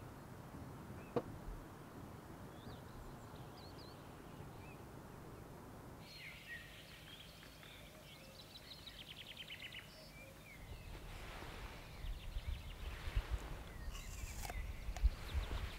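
Outdoor ambience: faint birds chirping over a low steady rumble, then after a change of scene a bird trilling rapidly. From about two-thirds of the way in, a series of low thumps and knocks.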